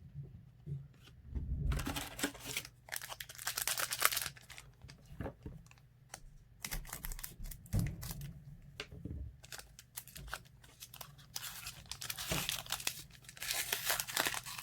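Wrapper of a trading-card pack being torn open and crinkled by hand, in three spells of rustling.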